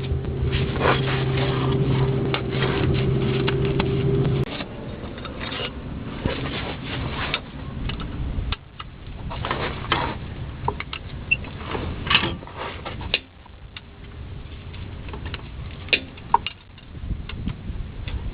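Hand tools clicking and clinking against the front CV axle flange and its bolts, in scattered, irregular knocks. A steady hum cuts off suddenly about four seconds in.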